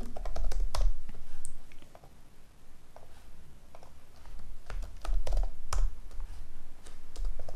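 Typing on a computer keyboard with scattered key and mouse clicks, mixed with dull low thumps in the first second and again around five seconds in.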